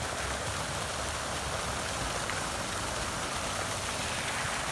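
Steady splashing hiss of water from a public fountain.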